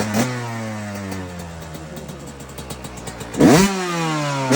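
Yamaha YZ125 two-stroke engine breathing through an FMF Fatty expansion chamber and Shorty silencer, revved with a throttle blip at the start and then slowly falling back in pitch. About three and a half seconds in it gets a second, sharper blip that rises and drops back to a steady lower note.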